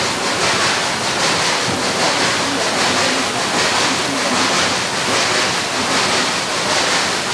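Steady wind rush over the microphone mixed with the running noise of a narrow-gauge cogwheel train rolling along its rack track, with faint regular clatter under the wind.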